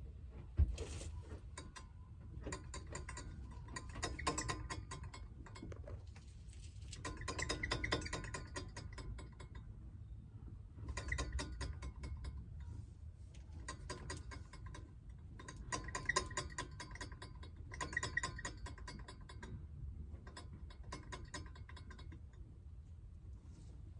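Rattling, clicking noise from around the rear of a Eunos Roadster (Mazda MX-5), coming in bursts of one to three seconds every few seconds over a steady low rumble. It is an abnormal noise whose exact source has not been located.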